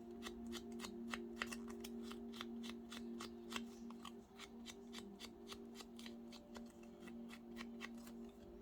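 Rapid light tapping of an ink pad dabbed around the edges of a paper card, about five taps a second, over a steady low hum.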